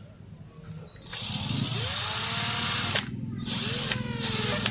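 Electric drill running, spinning a chucked part so it can be shaped round. It starts about a second in, stops briefly about three seconds in, then runs again.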